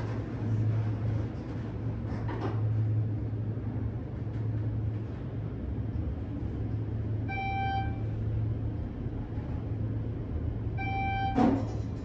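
Schindler 400A machine-room-less traction elevator travelling with a steady low hum, sounding a single electronic chime twice, about three and a half seconds apart, as the car passes floors. A sharp thump comes just after the second chime.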